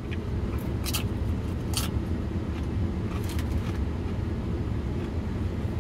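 Steady low rumble of a car idling, heard from inside the cabin, with a few sharp crunches of a tortilla chip being chewed in the first few seconds.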